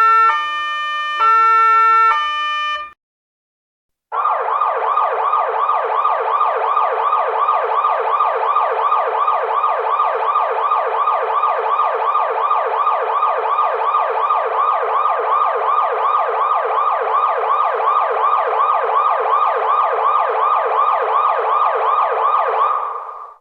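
Police car siren: a two-tone hi-lo wail alternating between two pitches about once a second, which cuts off about three seconds in. After a second's silence comes a fast yelp, sweeping up about three times a second and holding steady to the end.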